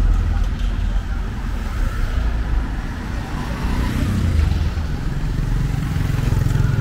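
Road traffic: vehicle engines running past with a steady low rumble.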